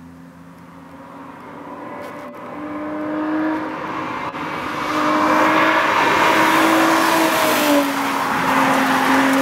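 BMW E30 325i's inline-six engine approaching at speed and passing by, its steady engine note growing steadily louder, then dropping in pitch as the car goes past near the end.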